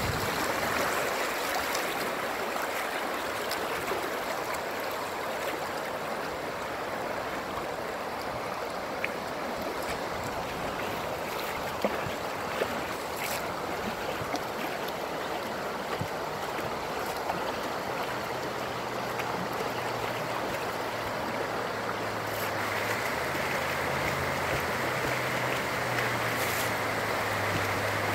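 River current flowing and lapping close by as an inner tube drifts downstream: a steady wash of water, with a few light clicks and a faint low hum coming in about two-thirds of the way through.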